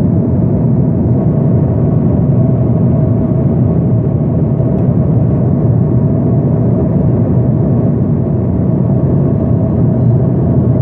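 Aircraft cabin noise in flight: a loud, steady engine and airflow drone with a constant hum running through it.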